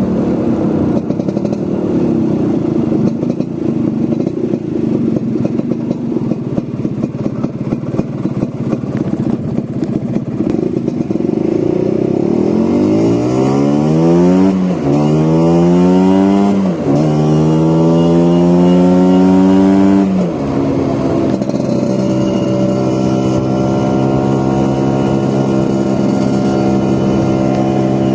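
Vespa scooter engine heard on the move with wind rush. About twelve seconds in it revs up three times in a row, the pitch climbing and dropping back between each, then settles to a steady note for the rest.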